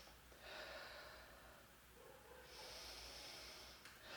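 A woman breathing slowly and softly for a mindfulness exercise: two long, faint breaths of over a second each, with the next one starting near the end.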